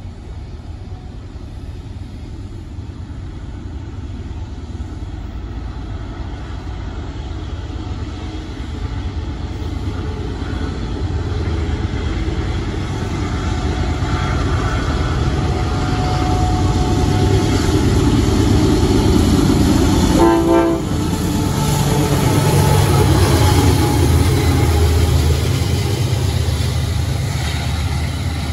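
CSX diesel locomotives hauling a double-stack intermodal train approach and pass close by, their engine rumble growing steadily louder. A short horn blast sounds about two-thirds of the way through.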